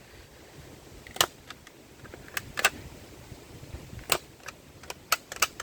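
A plastic toy gun being handled: about eight sharp clicks at uneven intervals, several bunched together near the end.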